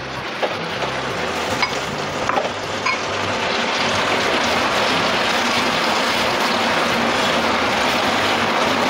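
Pieces of Goan pork choris (chorizo) and onion frying in hot oil in an aluminium pressure cooker, a steady sizzle that grows louder over the first few seconds and then holds. A few light knocks of the stirring spatula against the pot in the first three seconds.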